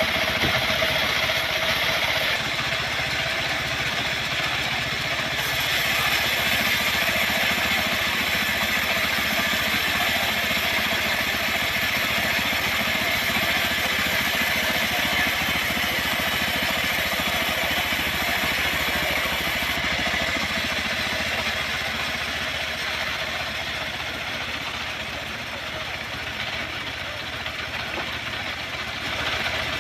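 Engine running steadily at an even speed, without revving up or down.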